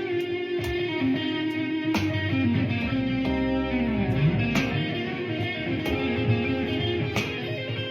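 Electric guitar playing slow blues lines over a steady beat, with a sharp hit about every 1.3 seconds and a sustained low note that changes about three seconds in.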